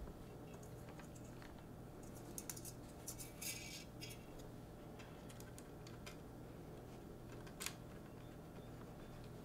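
Faint handling of 3D-printed plastic blaster parts during assembly: scattered small clicks, a brief scraping rustle about two to three seconds in, and a sharper click near the end, over a low steady hum.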